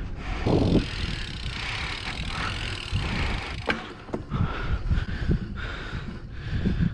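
Bicycle rolling on asphalt, heard through a helmet-mounted camera: wind rumble on the microphone and tyre noise, with a few sharp clicks and knocks from the bike.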